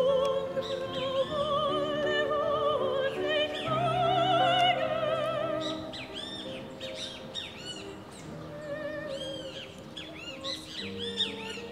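Operatic singing with wide vibrato over sustained orchestral accompaniment, which ends about halfway through. Birds then chirp repeatedly over quieter held music notes.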